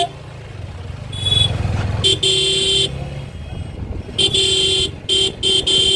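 Vehicle horn honking over road traffic: one long honk about two seconds in, then a long honk and two short ones near the end, with a low engine rumble underneath.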